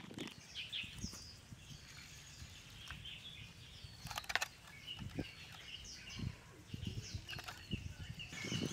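Small birds chirping in the background. Over them come a few light knocks and one sharp metallic clatter about four seconds in, as an aluminium mess tin is shifted on a wooden board and its wire handle is moved.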